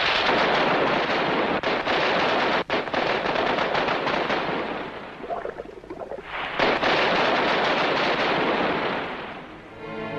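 Sustained automatic gunfire, with bullets splashing into water. It slackens briefly about halfway through, comes back loud, then fades out as orchestral music begins near the end.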